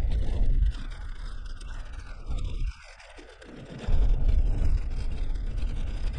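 Suzuki Jimny driving over a rutted dirt road: rough rumble and scraping road noise with no clear engine note. It drops away for about a second near the middle, then comes back.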